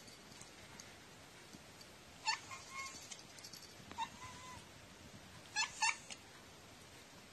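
A domestic cat meowing four times: a call a little over two seconds in, another at about four seconds, and two short meows in quick succession near six seconds.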